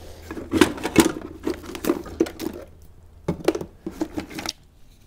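Hands rummaging through a bin of found metal and plastic parts: objects clinking and clattering against each other in irregular handfuls, with a short pause around the middle.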